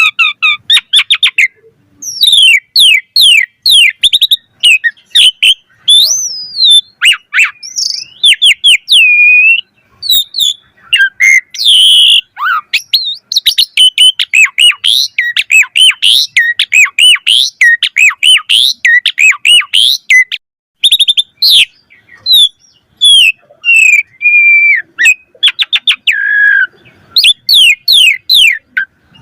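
Asian pied starling (jalak suren) in full, vigorous song: a rapid, unbroken run of varied whistles, chirps and sweeping notes, with only brief pauses.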